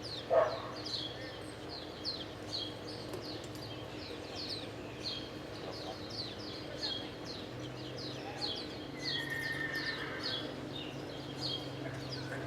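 Small birds chirping over and over, a steady run of short, quick downward chirps, with a brief louder sound just after the start.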